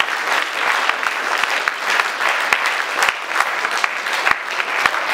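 A crowd applauding: many hands clapping steadily and densely throughout.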